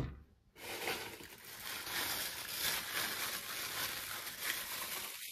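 Clear plastic wrapping rustling and crinkling as it is handled, starting about half a second in and going on unevenly for several seconds.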